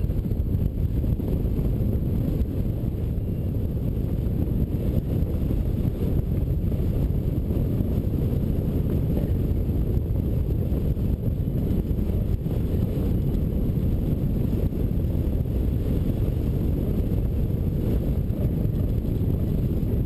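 Airflow buffeting the microphone of a camera mounted on a hang glider in flight: a steady low rumble of wind noise.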